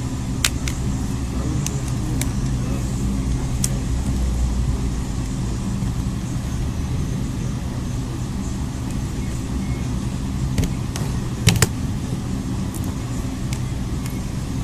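Steady low rumble in the background, with a few scattered sharp clicks as a pick is run along the edge of a phone and its plastic housing clips snap loose; the loudest are a pair of clicks about eleven and a half seconds in.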